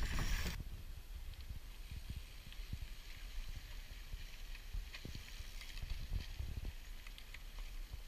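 Ride noise from a camera on a cyclocross bike on a dirt track: tyres rolling over the dirt, with irregular knocks and thuds as the bike jolts over bumps and a steady rumble of wind on the microphone. A louder rush of noise fills the first half second.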